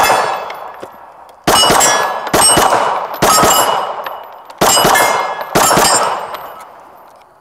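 Five shots from a Glock 19 Gen 5 9mm pistol, fired about a second apart. Each report is followed by the ringing clang of a steel plate target being hit, fading over about a second.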